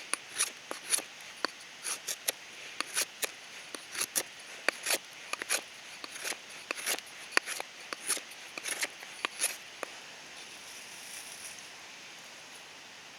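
An irregular series of sharp clicks and scrapes, a few a second, stopping about ten seconds in.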